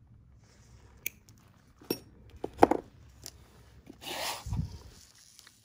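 Side cutters snipping monofilament fishing line: a few sharp clicks. About four seconds in comes a brushing rustle that ends in a soft thump, as the rig is handled and laid down on the work surface.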